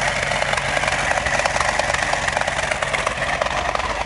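1970 Dodge Challenger R/T's 440 Magnum V8 idling steadily through its dual exhaust.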